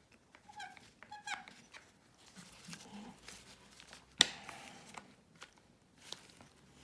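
A clamp being put on and tightened: faint handling noise with a few short squeaks in the first second and a half, and one sharp click about four seconds in.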